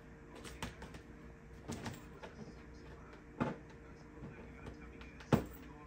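Scattered soft knocks and rustles from a kitten playing against a fabric pop-up playpen, with four or so separate bumps and a louder thump near the end.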